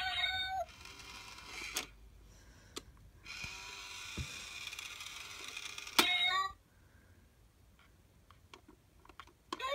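Cat coin bank running: its small motor whirs for a few seconds as the lid and paw mechanism move, then it shuts with a sharp snap, with short meow sounds at the start and right after the snap.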